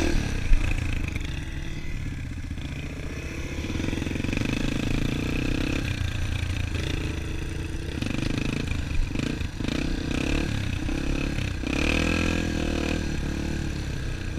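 Dirt bike engine running under load and revving as it rides, its pitch rising and falling, heard from the rider's helmet. A sharp knock comes about half a second in.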